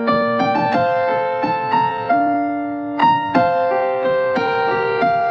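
Keyboard music: a slow melody of single piano-like notes, each struck and held, over sustained lower notes.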